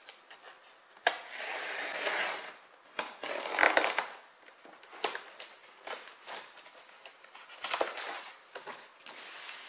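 A cardboard shipping box being cut open: a blade slitting the packing tape, with tearing and scraping of tape and cardboard in several bursts of a second or so and scattered clicks.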